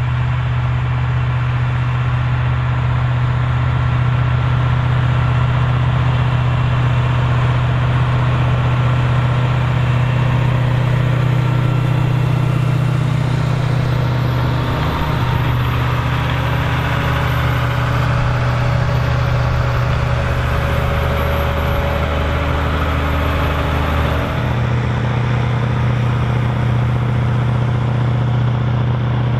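Big articulated farm tractor's diesel engine running steadily, a loud low hum, with slight changes in its note about halfway through and again near the end.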